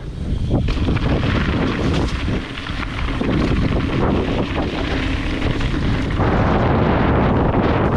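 Heavy wind rumble on the microphone during a fast mountain bike descent, mixed with tyre noise on the trail and frequent short knocks and rattles as the bike runs over rough ground.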